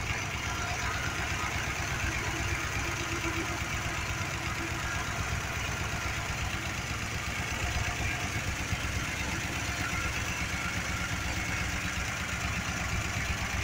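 1965 Dodge D200's wide-block 318 V8 idling steadily, heard from over the open engine bay.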